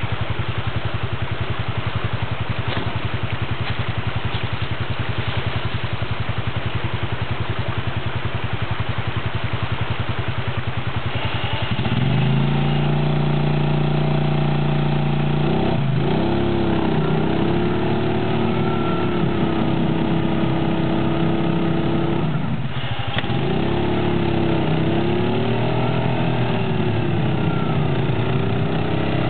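ATV engine idling steadily, then from about twelve seconds in revved hard under load as the quad climbs over a boulder, its pitch rising and falling with the throttle; it drops off briefly once before revving up and down again.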